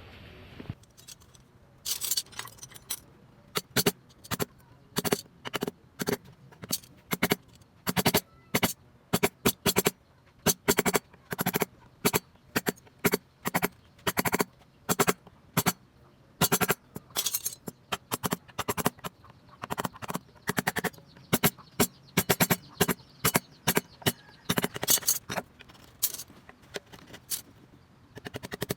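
Hand carving chisel cutting into wood in short, irregular strokes, one to three a second, starting about two seconds in.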